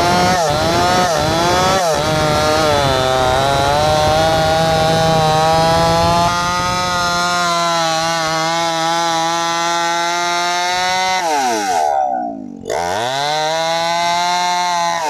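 A New West 568 two-stroke chainsaw ripping lengthwise through a log. For the first two seconds the engine bogs and recovers in quick dips under load, then it holds a steady high cutting speed. About 11 seconds in the throttle drops off and the pitch falls, and after a brief break the saw revs back up.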